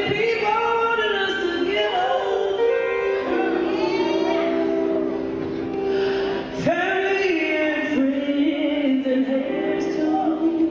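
A woman singing gospel into a handheld microphone, her voice bending through long held phrases over steady held notes of accompaniment.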